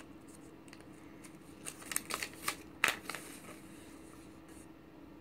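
Faint rustling and a few sharp clicks of small items and packaging being handled, mostly in the middle, over a steady low hum.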